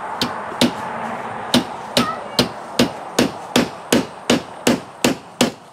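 Claw hammer nailing metal drip edge to a wooden fascia board: two blows, a brief pause about a second in, then a steady run of about a dozen sharp strikes, roughly two and a half a second.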